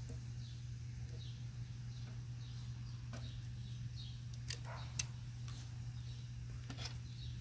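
A few sharp clicks and snaps from pliers and a brass fitting being worked onto a plastic air line, the loudest about five seconds in. Behind them a bird gives short falling chirps over and over, about once or twice a second, over a steady low hum.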